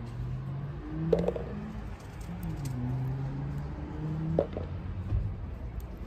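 Cherry tomatoes being snapped off the vine and dropped into a plastic jug: a couple of light clicks, about a second in and again past four seconds. Under them runs a low hum that steps between a few pitches.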